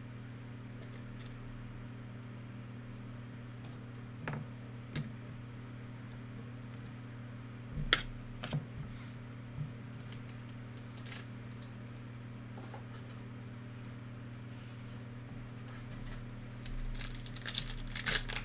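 Trading cards and packs handled with scattered light clicks and taps, then near the end a card pack wrapper torn open with a run of crinkling and rustling, over a steady low hum.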